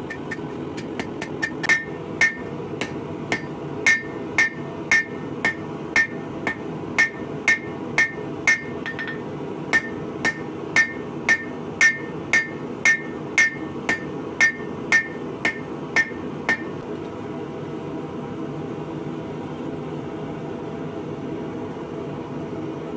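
Hand hammer striking red-hot rebar on a steel anvil, steady blows about two a second, each with a bright ring, stopping about sixteen seconds in. A steady low hum runs underneath.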